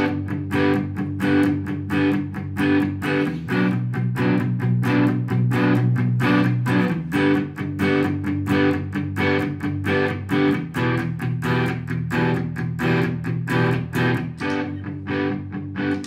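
Electric guitar strumming a G major, B minor, G major, E minor chord progression in a steady rhythm of about four strokes a second, the chord changing every few seconds.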